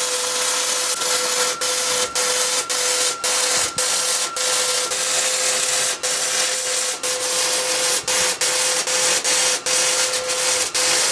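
MIG welding arc crackling and sizzling as a bead is run along the steel end cap of a smoker, with short breaks about twice a second and a faint steady tone underneath.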